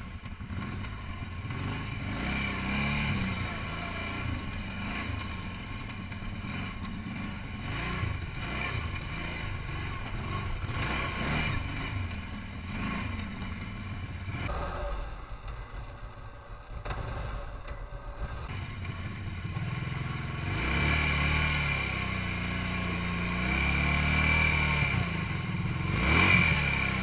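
Kawasaki ATV engine running as the quad is ridden over a dirt trail, its pitch rising and falling with the throttle, and revving louder in the last few seconds.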